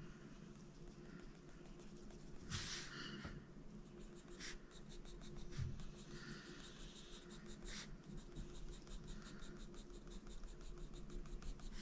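Faint scratching of a Faber-Castell Polychromos coloured pencil on paper, shading in short strokes, with a few brief clicks along the way.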